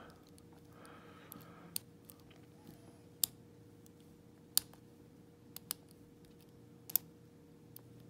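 Lock pick and tension wrench working the pin tumblers in the keyway of an old brass Segal padlock: a handful of sharp metal clicks at uneven intervals, over a faint steady hum.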